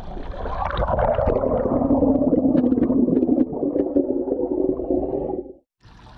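Fountain water plunging into a pond, heard with the microphone underwater: a muffled churning and bubbling with a steady low hum and scattered ticks. It cuts off suddenly near the end, leaving a faint trickle of water.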